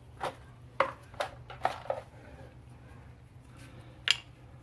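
Light metallic clinks and taps of brake pads and their metal shim hardware being handled: about five in the first two seconds, then a sharper one about four seconds in.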